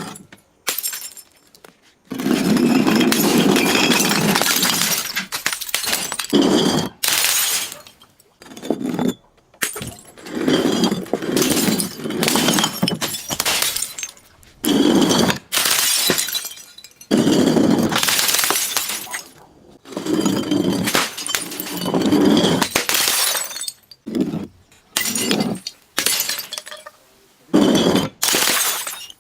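Glass bottles being crushed: loud breaking and crunching glass in repeated bouts of one to three seconds, with short pauses between.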